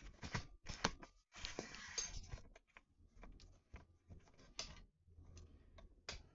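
Irregular light clicks and taps, with a brief rustle about a second and a half in. This is handling noise from a phone held in the hand while the person moves about.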